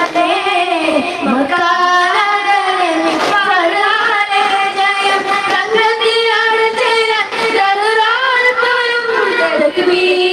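A group of boys singing a devotional song together in a daff muttu performance, with the continuous melody rising and falling, and occasional strikes of their hand-held daf frame drums, one clear one about three seconds in.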